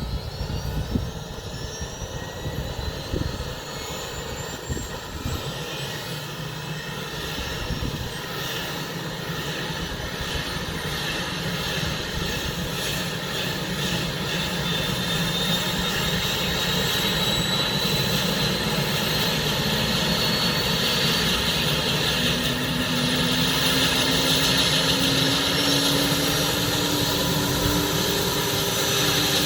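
Airbus H145 D3 helicopter's twin turboshaft engines running up on the ground: a steady turbine whine that climbs in pitch while the overall sound grows louder, as the engines and five-blade rotor spool up ahead of takeoff.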